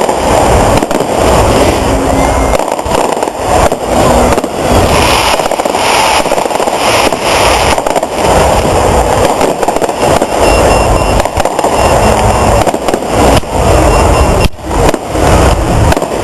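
Fireworks display: a dense, continuous barrage of very loud bangs and crackling.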